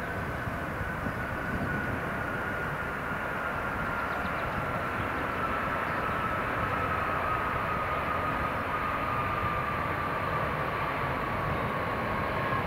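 Airbus A380's four Engine Alliance GP7200 turbofans running during the rollout after landing: a steady jet roar with a fan whine that slowly falls in pitch.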